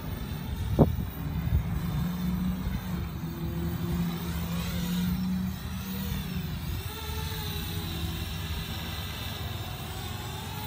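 Multirotor drone's propellers humming as it descends and manoeuvres, their pitch wavering and gliding, over a low rumble. A sharp thump about a second in.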